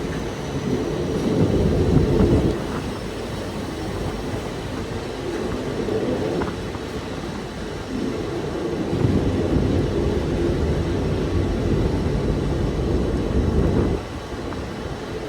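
Passenger train coaches running on the rails: a steady low rumble of wheels that swells and eases, louder about two seconds in and again from about nine seconds, dropping back near the end.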